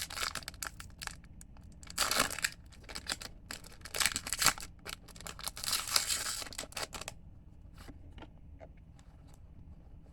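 Foil booster pack wrapper being torn open and crinkled, a dense crackling for about seven seconds, then only a few faint ticks.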